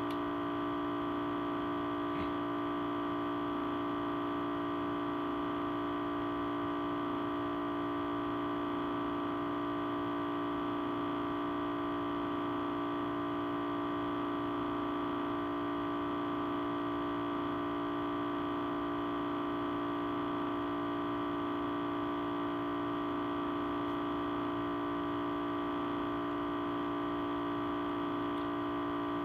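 Audio feedback: a steady hum of several held tones at once, the strongest a low tone with a higher one in the middle, holding without change.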